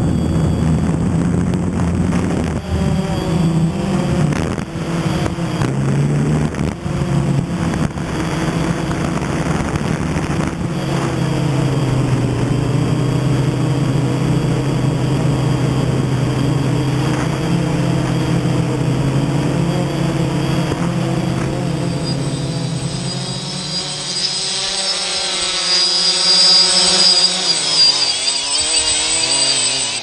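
DJI Phantom quadcopter's electric motors and propellers whirring steadily in flight, the pitch wavering as the motor speeds keep adjusting. In the last several seconds the deep part of the hum drops away, leaving a higher, unsteady whir.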